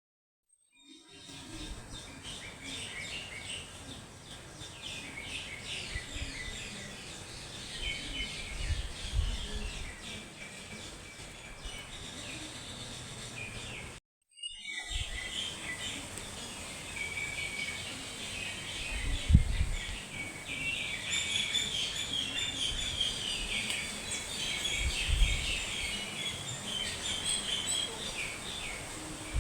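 Many small bird-like chirps and tweets over a steady outdoor hiss, used as the call of Epidexipteryx, a small feathered dinosaur. A few dull low thumps sound in between, and the sound cuts out briefly halfway through.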